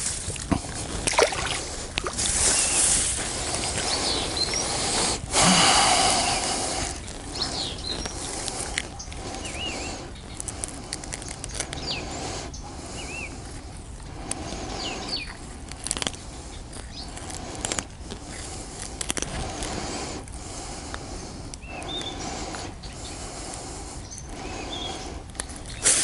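Close rustling, scraping and wet squelching of hands working fish out of a tangled fishing net, loudest about five seconds in, with a few short high chirps.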